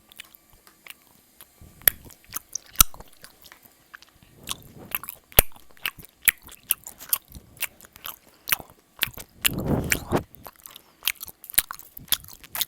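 Close-miked eating sounds of malatang: irregular wet mouth clicks, chewing and biting. A longer, louder rushing sound comes about ten seconds in.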